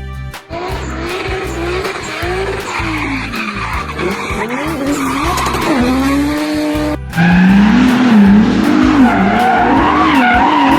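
Race car sounds: an engine revving up and down with tyre squeals, over background music with a steady beat. It gets suddenly louder about seven seconds in.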